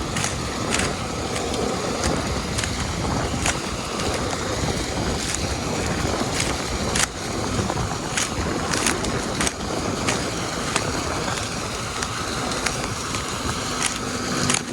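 Steady machinery and engine rumble with a hissing, wind-like noise, broken by frequent sharp clicks and rattles.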